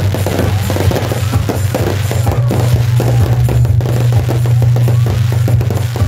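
Aerial fireworks bursting and crackling in rapid succession, with a continuous heavy bass line of loud music underneath.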